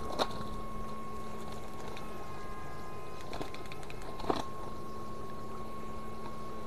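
Muddy water sloshing as a man wades and works among plastic sheeting in a shallow pool, with two sharp knocks or splashes, one just after the start and one about four seconds in. A steady high-pitched hum runs underneath.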